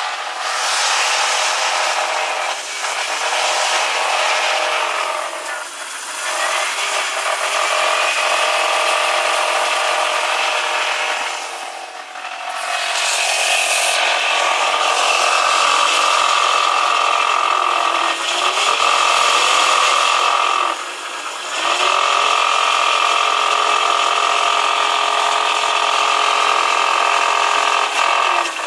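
BMW E46 323i's M52TU straight-six engine held at low revs with a rattle, its speed dropping and picking up again several times. The rattle comes only with the engine cold, at about 1600–2100 rpm, and seems to come from under the engine toward the gearbox; its cause is unknown.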